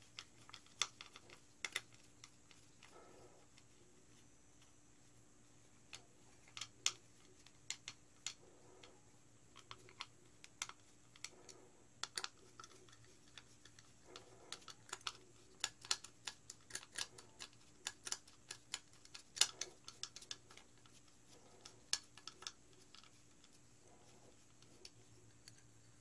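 Irregular light clicks and taps of a screwdriver and machine screws being worked by hand into the tapped holes of an aluminum mounting plate, the screws needing to be screwed in rather than pushed through. A faint steady hum lies beneath.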